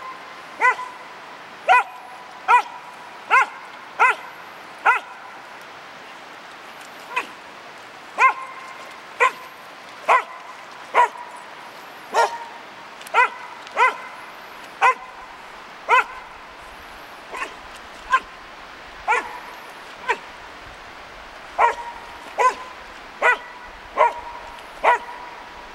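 A dog yipping over and over, short high yelps about once a second, with a thin whine held between some of them.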